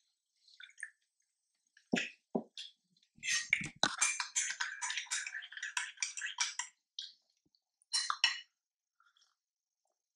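Kitchen handling noises while making coffee: two knocks about two seconds in, then about three seconds of dense, irregular crackling, and another short burst near the end.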